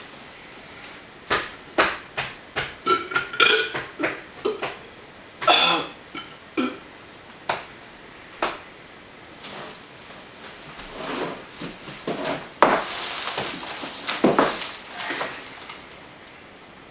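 A string of short, irregular vocal noises and knocks close to a microphone, thickening into a longer, raspier stretch about thirteen seconds in.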